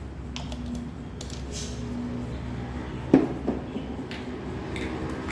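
A few light clicks and clinks of kitchen utensils and containers, with two sharper knocks about three seconds in, over a low steady hum.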